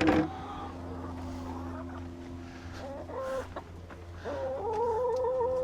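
Chicken hen calling in a coop: a short pitched call about three seconds in, then a longer wavering call from just past four seconds, over a steady low hum.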